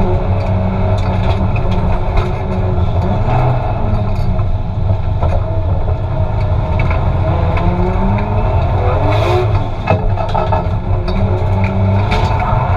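Turbocharged Toyota 2JZ straight-six with a T78 turbo revving hard while drifting, heard loud from inside the cabin. Engine pitch rises and falls again and again, with a brief drop in level about ten seconds in.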